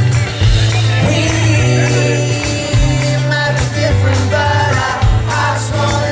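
Live rock band playing a song, with a steady heavy bass line and held guitar or keyboard notes; a voice comes in singing about halfway in.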